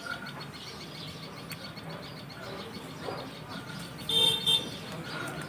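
A horn sounds two short toots in quick succession about four seconds in, over a low steady background hum.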